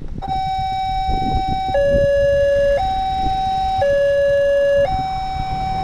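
Railway level-crossing warning alarm starting up: an electronic two-tone signal alternating between a higher and a lower pitch about once a second, warning that a train is approaching. Road traffic rumbles underneath.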